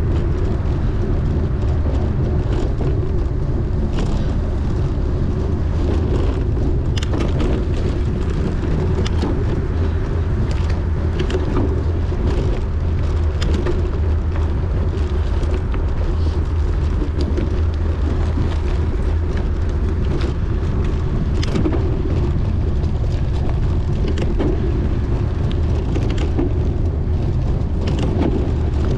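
Wind rumbling on the microphone of a bicycle ridden at race speed, with scattered clicks and rattles from the bike over rough ground.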